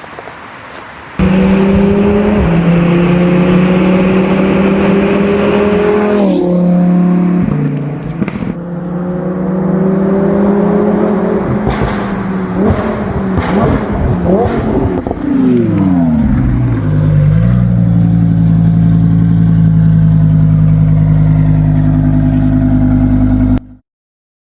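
Lamborghini Huracán Spyder's V10 engine with a titanium exhaust line, accelerating hard: the revs climb steadily, drop at a gearchange, climb again, then fall away quickly about 15 seconds in and hold steady. The sound starts suddenly about a second in and cuts off abruptly near the end.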